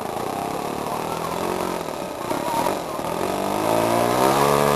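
Small engine of a radio-controlled model Mustang plane running on the ground, its pitch wavering at first, then revving up about three seconds in and holding higher and louder as the throttle opens for take-off.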